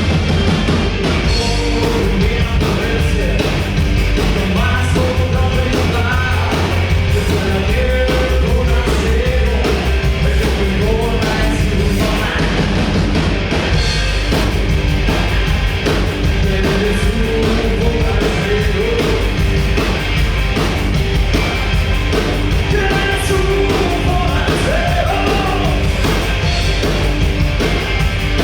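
Loud rock music with a singing voice over heavy, sustained bass.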